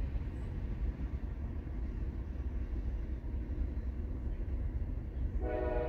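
Low, steady rumble of a passing train heard from inside a closed truck cab. About five seconds in, a train horn starts sounding a steady chord.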